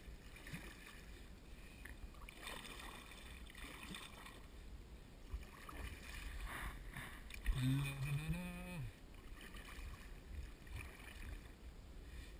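Kayak paddle strokes dipping and splashing in river water, with small knocks scattered through. A little past halfway comes a short vocal sound from the paddler, rising in pitch.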